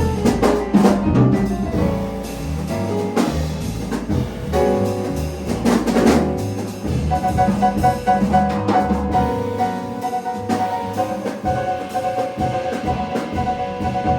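Jazz piano trio playing: piano melody over a walking bass line, with drum kit and cymbal accents.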